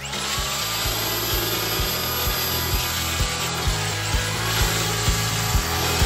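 Milwaukee Fuel grinder with a sanding disc starting up and grinding down the edge of a windshield's glass, its motor whine rising as it spins up. About four seconds in, the pitch dips briefly under load and then recovers. Background music with a steady beat runs underneath.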